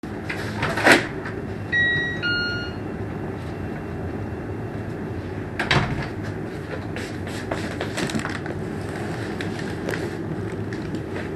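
Doorbell chiming 'ding-dong', a higher note then a lower one, about two seconds in. Underneath is a steady rumbling background, with a sharp knock or clatter just before the chime and another about halfway through.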